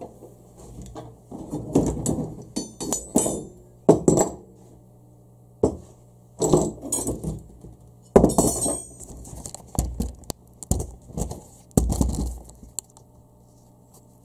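Metal tools and pieces of steel tube being picked up and set down on a steel workbench: irregular clanks and clinks, two of them ringing on briefly.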